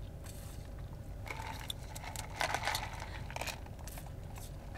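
Iced coffee being sipped through a plastic straw from a plastic cup: a few short, irregular sips and crinkles of the cup over a low steady hum.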